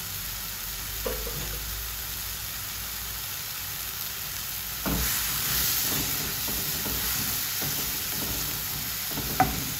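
Diced shiitake mushrooms sizzling in oil in a nonstick wok, a steady hiss that gets louder about halfway through as a silicone spatula starts stirring them. A few light knocks of the spatula against the pan, the sharpest near the end.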